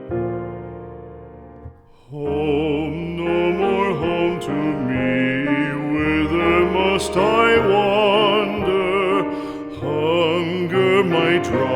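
Background music: a piano chord dies away, then about two seconds in a slow song starts, a voice with a wide vibrato over piano accompaniment.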